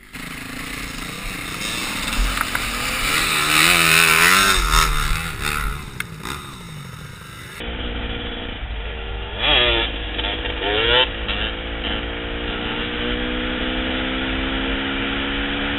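Dirt bike engine revving up and down in uneven bursts. After a cut about halfway through, a dirt bike is ridden along a gravel road, its engine note climbing steadily, with two quick throttle blips.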